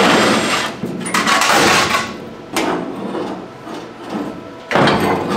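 Milwaukee Fuel cordless impact tool running in several short bursts as it backs out the bolts of a rusty steel pickup tailgate, with clunks as the tailgate is handled and lifted off.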